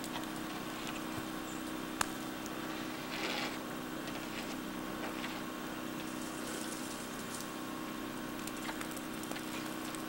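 Quiet, steady hiss and low hum with no clear activity, broken by a single sharp click about two seconds in and a brief soft rustle a second later.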